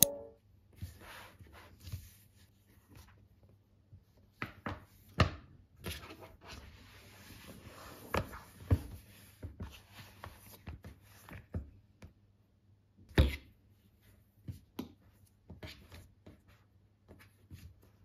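Scattered light taps, clicks and soft knocks of an iPad in a folding cover and its Apple Pencil being handled on a desk, with a stretch of faint rustling in the middle. One sharper knock comes about two-thirds of the way through.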